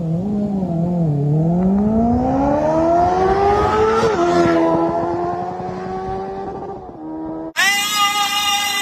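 Motorcycles accelerating hard from a standing start: a whine rises steadily in pitch, then drops slightly as they pass and holds. After a sudden break, an electric motorcycle's motor gives a steady high whine as it spins the rear tyre in a standing burnout.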